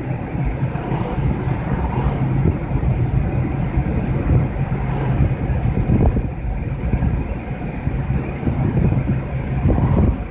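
Car driving along a paved road, heard from inside the cabin: steady engine hum and tyre rumble.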